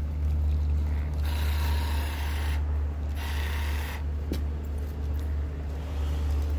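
Marking paint spraying from the tip of a pole-mounted applicator in several hissing spurts with short breaks between them, over a steady low hum.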